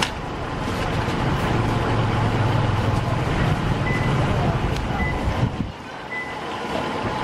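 Busy street ambience dominated by a vehicle engine running nearby with a steady low rumble, which drops away a little before the end. Three short high beeps, like a reversing alarm, sound between about four and six seconds in.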